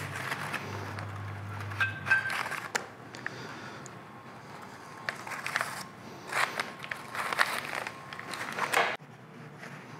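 Blue paper shop towel rustling and crinkling in irregular bursts as it wipes old grease out of the compound's gears and bearings, with a few light clicks against the metal parts.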